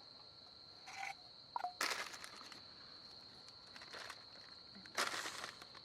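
Steady high-pitched insect chirring, like autumn crickets, with a few short bursts of rustling and handling noise, the loudest about five seconds in.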